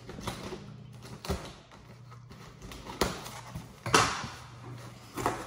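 Hands rummaging in a cardboard shipping box: rustling of packing material and cardboard flaps with a few scattered knocks, the loudest a crinkly rustle about four seconds in, over a low steady hum.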